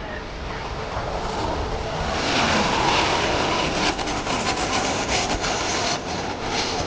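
Jet airliner engines at close range: a loud, even rush that builds to its loudest two to three seconds in. A rough crackle runs through the middle, then the sound eases slightly.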